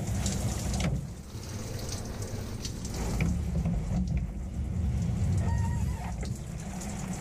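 Shower spray running steadily onto a person and a soaked fur jacket, water splashing and pattering in a small shower stall. The higher hiss of the spray drops about a second in.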